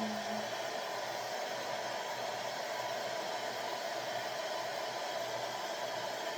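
Hand-held hair dryer running steadily, blowing on a freshly glued weave track to dry the bonding glue.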